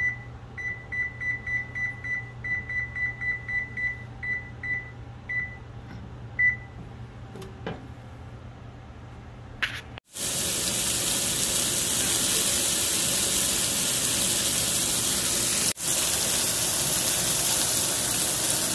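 Oven control panel beeping as its buttons are pressed: a quick run of short high beeps, then a few spaced ones, fading out after about six seconds. From about ten seconds in, a steady loud sizzle of seasoned venison backstrap pieces searing in hot oil in a cast-iron skillet, with a momentary break near the end.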